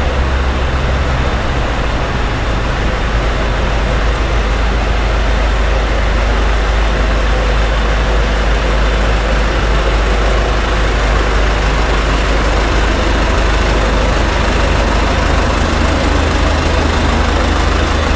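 Large diesel engine of a high-boy crop sprayer, heard loud and steady with a deep low hum that strengthens a little near the end.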